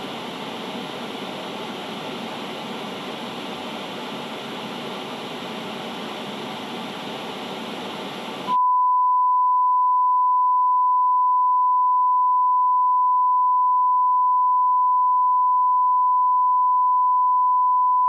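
Hiss of TV static cuts off abruptly about halfway through. A steady, loud, single high-pitched test tone follows, the tone that goes with colour bars when a broadcast is off the air.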